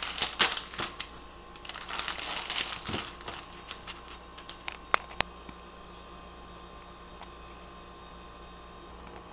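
Crinkling plastic wrapper of a Maruchan Lime Shrimp instant ramen packet being handled and set down on a counter, in two stretches over the first three seconds. Two sharp clicks follow about five seconds in, then only a steady faint hum.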